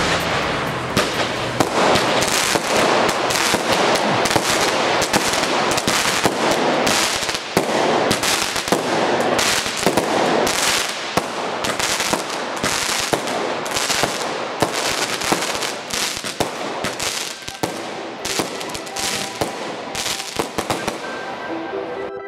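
Panda Rocker fireworks battery firing: a rapid run of launches and bursts over steady hissing and crackle, thinning out and stopping just before the end.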